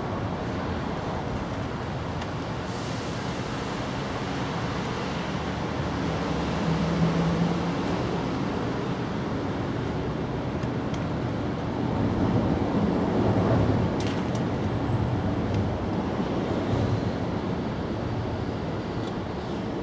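Steady low rumble of passing road traffic, swelling about seven seconds in and again about twelve to fourteen seconds in.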